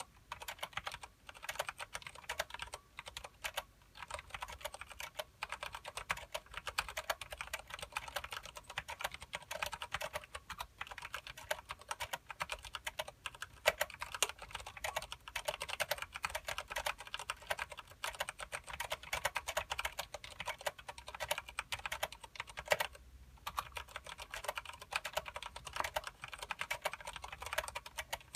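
Continuous fast typing on a KBParadise v60 mechanical keyboard with Cherry MX Clear switches and thick PBT keycaps, dense key clacks with a couple of short pauses.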